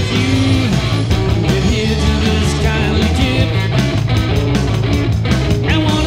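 Live rock-and-roll music: electric guitar playing over a backing with a steady bass line and beat.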